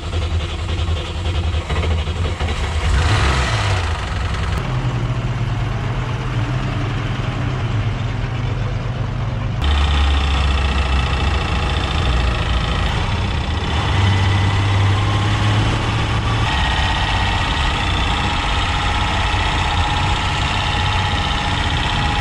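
1965 Unimog's engine running as the truck is driven, heard from inside its cab. Its low note steps up and down several times.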